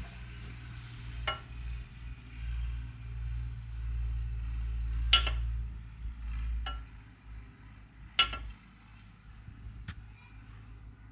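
A few short, sharp metallic clinks and knocks, four in all and spread apart, over a steady low hum.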